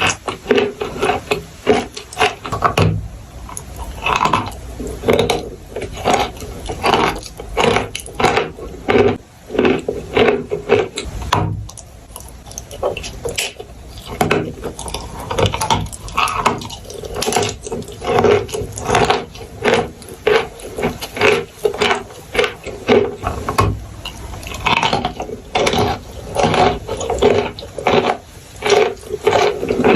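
Chalk and clay crunching and crumbling in a dense run of crackly snaps, easing briefly about twelve seconds in before picking up again.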